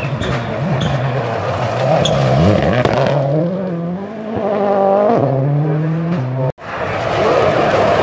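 Rally cars' engines revving hard on a gravel stage, the pitch rising and dropping with gear changes, over the hiss of spraying gravel. The sound cuts out abruptly about six and a half seconds in, then another car picks up.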